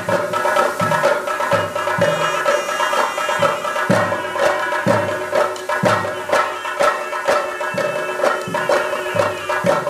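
Theyyam ritual music: chenda drums beaten with sticks in a repeating rhythm, with a shrill double-reed pipe holding a sustained melody over them.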